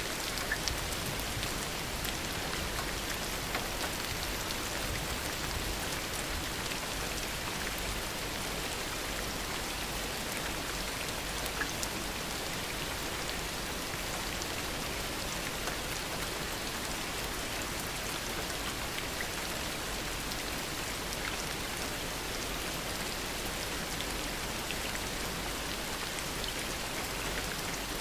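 Steady heavy rain falling, a dense even hiss of rain with individual drops ticking on surfaces.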